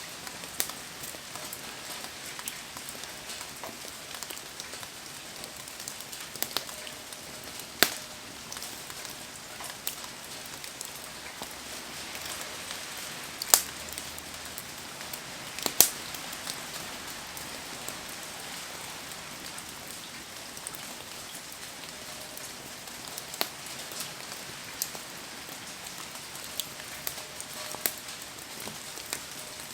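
Steady rain hiss around a wood bonfire, with scattered sharp pops and crackles from the burning wood. The three loudest pops come about a quarter of the way in and twice around the middle.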